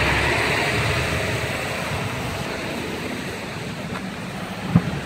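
Road traffic noise: the rush of a passing vehicle fades over the first few seconds, and one short sharp knock sounds near the end.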